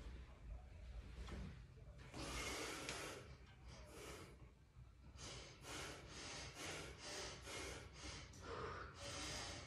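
A person breathing hard while squatting under a loaded barbell: a long breath about two seconds in, then quick sharp breaths about three a second from about halfway, closing with a longer breath near the end.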